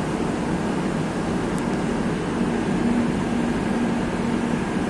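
Steady rushing hum of a Madrid Metro series 2000A train standing at an underground platform, its onboard ventilation and equipment running, with a low hum that wavers in and out.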